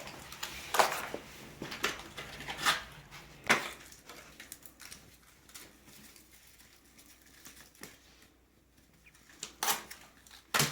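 Scattered sharp clicks and light knocks of PVC pipe, fittings and supplies being handled, several in the first few seconds and two more near the end.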